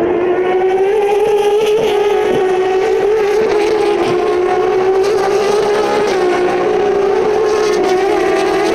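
A pack of Turismo Carretera race cars passing at full throttle, their engines blending into one loud, steady note.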